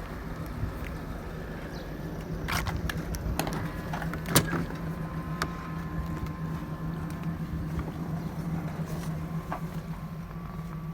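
Steady low mechanical hum with a few sharp metallic clicks and knocks from hand tools as intake manifold bolts are fitted, the loudest about four seconds in.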